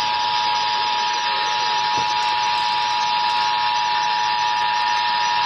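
Emergency Alert System attention tone relayed over a broadcast station: a steady electronic tone near 1 kHz with a layer of hiss, cutting off near the end as the warning message is about to start.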